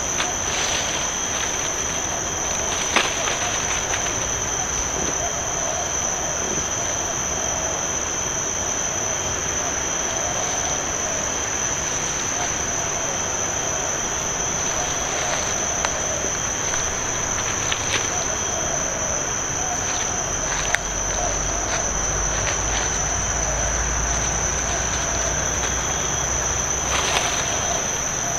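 Steady, high-pitched drone of insects in tropical forest, unbroken throughout, with a few brief sharp clicks.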